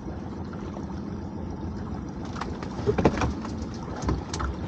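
Steady low rumble of a small open fishing boat at sea, with two short, louder sounds about three seconds and four and a half seconds in.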